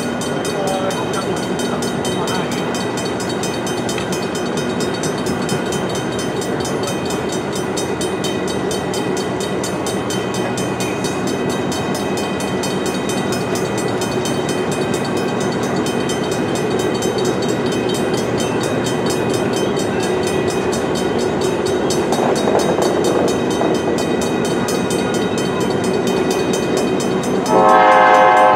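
Locomotive-hauled passenger train rolling past with a steady rumble of engine and wheels. Near the end it gives a loud horn blast.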